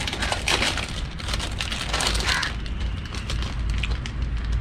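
Crinkling and rustling of a plastic Kurkure snack packet being opened and handled, loudest just after the start and again about two seconds in, over a steady low rumble.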